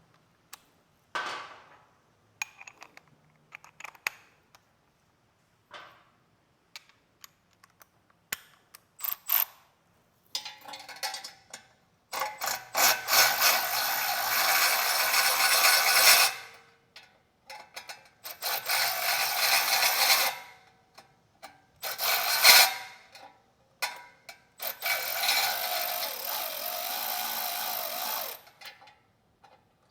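A ratchet wrench working exhaust bolts, in four runs of rapid ratcheting of one to four seconds each, with scattered clicks and clanks of tools and parts in between.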